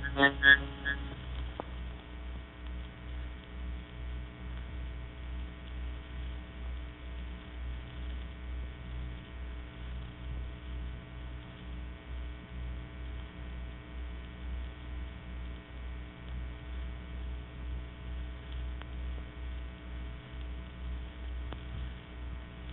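Steady mains hum and surface noise of an old recording, its low end swelling and fading about once a second. In the first second and a half the pulsing, buzzy synthetic tone of the vocoder dies away.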